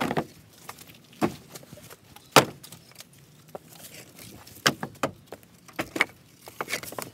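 Wooden boards knocking and clattering as they are handled: a string of sharp, uneven knocks, about eight or nine.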